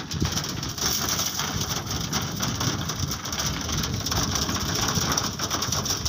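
A flock of pigeons pecking grain off a hard painted surface: a dense, steady patter of small taps over a low rumble.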